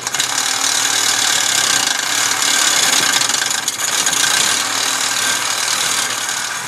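Cordless Milwaukee reciprocating saw cutting steadily through the internal baffle of an intake manifold, its blade rasping through the metal. The cut stops near the end.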